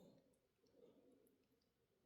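Near silence, with a few faint small clicks of tiny model-locomotive parts and tools being handled.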